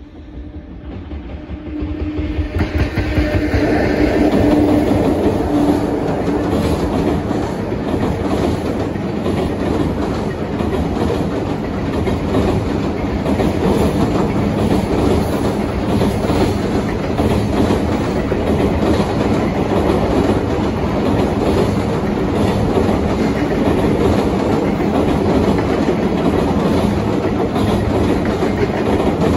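JR Freight container train hauled by an EF66 electric locomotive crossing a girder railway bridge. The sound rises quickly about two seconds in as the locomotive arrives, with a steady tone for the first few seconds. After that a long string of container wagons clatters over the rails with a loud, even rumble.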